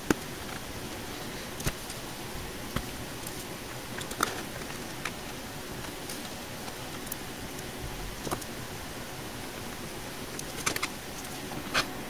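Scattered small metal clicks and taps, one every second or few, as tiny Torx T8 screws are handled and driven into the aluminium drive enclosure's end cover, over a steady faint hiss.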